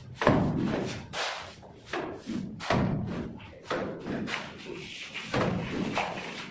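Wet cement-sand mortar being thrown onto a wall with a plastic scoop, each throw landing with a dull slap, about six in a row at roughly one a second.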